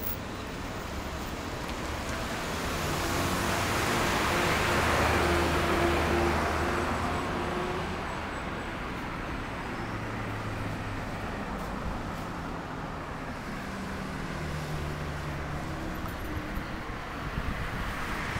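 Road traffic: a vehicle passes, building to its loudest about five seconds in and fading away, over a steady low hum of engines.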